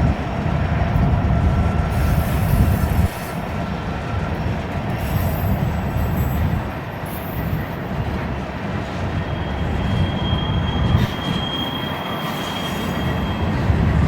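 Empty coke hopper cars of a freight train rolling past with wheel squeal: thin, steady squealing tones that shift pitch partway through. Strong wind buffets the microphone with a low rumble that eases suddenly about three seconds in.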